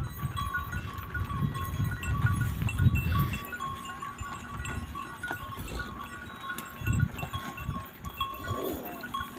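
A herd of zebu cattle on the move. There is low rumbling noise for the first few seconds, small clinks throughout, and a short animal call near the end.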